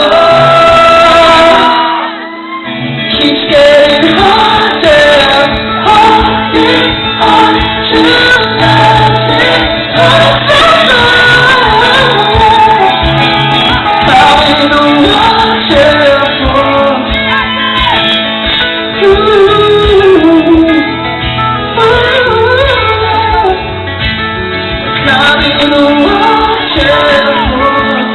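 Pop-rock band playing live, with singing over guitar and drums and loud, steady music throughout. The sound drops briefly about two seconds in.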